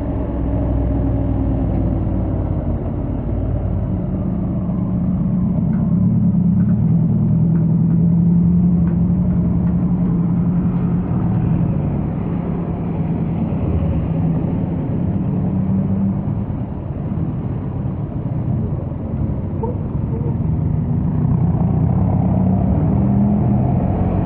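Honda X-ADV 750's parallel-twin engine and stock exhaust running steadily at highway speed, heard from the rider's seat over a low wind rumble. The engine note swells a little a few seconds in and rises again near the end.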